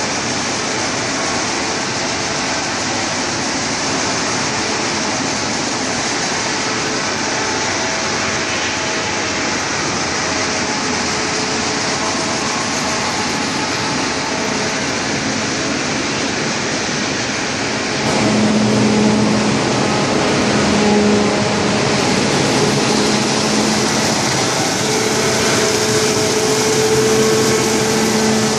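Wood sawdust-making machinery running, a steady loud noisy drone from its electric motors and conveyors. About two-thirds of the way through it gets louder and a steady hum comes in.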